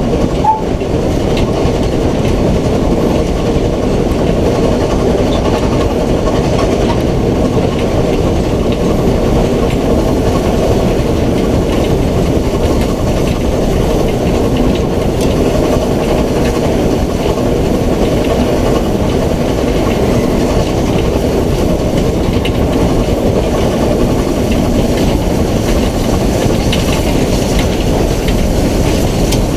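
BR Standard Class 9F 2-10-0 steam locomotive running along the line, heard close up from outside the engine: a steady, loud rumble with no breaks.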